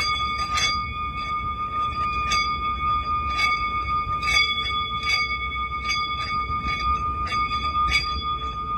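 Meditative healing-sound music: a steady high tone is held, with short, sharp strikes scattered irregularly over it and a low rumble beneath. A second, lower tone joins about halfway through.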